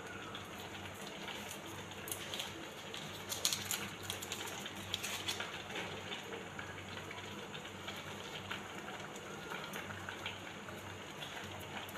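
Foil wrapper of a Maggi stock cube crinkling and crackling as it is unwrapped, in a cluster of sharp crackles about two to five seconds in. Underneath, a steady bubbling hiss from a pot of rice simmering on the stove.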